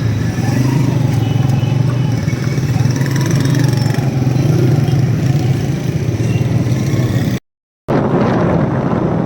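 Motorcycle engine running steadily while riding along a road, with wind and road noise. The sound drops out for about half a second near the end, then resumes.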